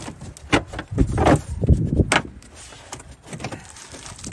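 Plastic bumper and fender-skirt trim being pulled loose and handled: a quick series of sharp clicks, knocks and rattles, busiest in the first half, over the low rumble of wind on the microphone.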